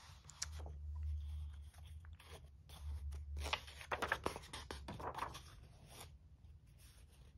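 Picture-book pages being handled and turned by hand: soft, irregular paper rustles and crinkles.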